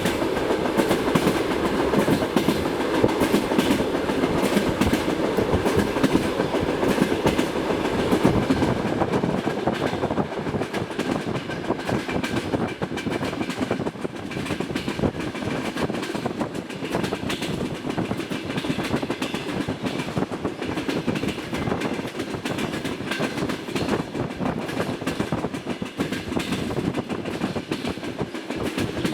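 Passenger train wheels clattering over the rails in a dense, continuous run of knocks, a little louder in the first third. Among them is the knocking of wheel flats, which the uploader says can be heard.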